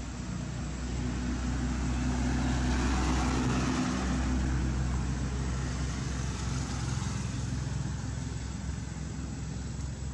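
A steady engine hum with a low drone, growing louder over the first few seconds and easing off gradually after the middle.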